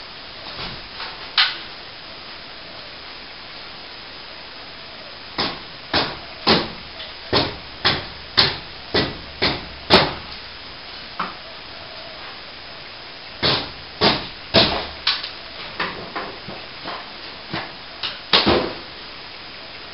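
Sharp knocks and impacts against the damaged garage ceiling plaster, in irregular runs of about two a second with pauses between.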